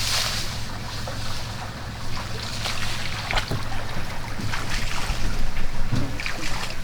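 Tour boat's motor running steadily at low speed, with water sounds and a few faint clicks.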